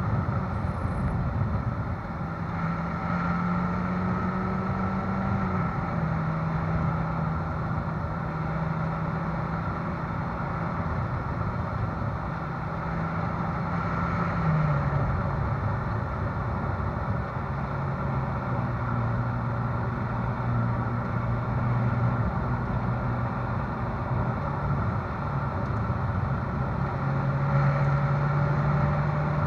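Ferrari California's V8 exhaust at a low, steady cruise, heard from the rear of the car, over tyre and road noise from a rough surface. The engine note drops about halfway through and rises again near the end.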